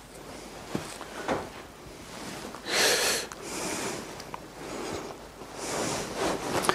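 Quiet chapel room sound with a few faint knocks, a short loud breathy hiss about three seconds in and a fainter one near the end.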